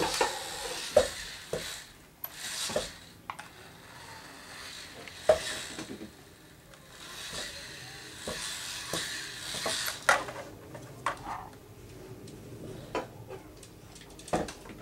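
Homemade motor-driven PVC-pipe robot moving over a comforter: bursts of fabric rustling and scraping, mixed with sharp clicks and plastic knocks from its frame and from the rocker-switch control box.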